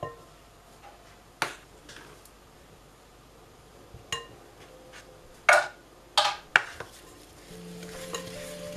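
A measuring spoon and wire whisk knocking and clinking against a glass mixing bowl: a handful of separate sharp clinks, the loudest a quick cluster about five and a half to six and a half seconds in.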